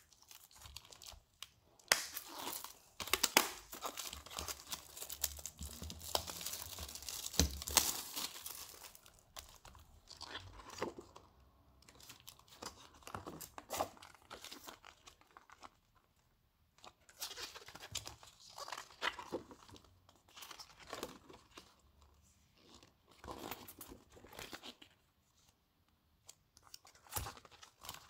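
Plastic wrapping being torn and crinkled by hand, dense and loud for several seconds near the start, then on-and-off crinkling and light taps as plastic sleeves and card are handled, with short quiet pauses between.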